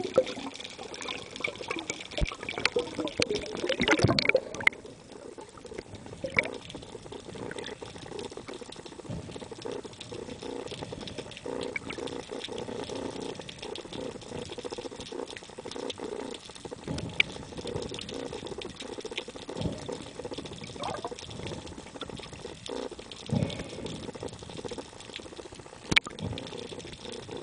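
Underwater water noise around a spearfisher: a steady sloshing, bubbling hiss with scattered clicks and knocks from handling the catch and gear. The loudest bustle of water comes about two to four seconds in.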